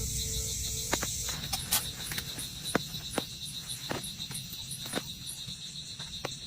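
Crickets chirping in a steady pulsing trill, with a few sharp ticks scattered through it.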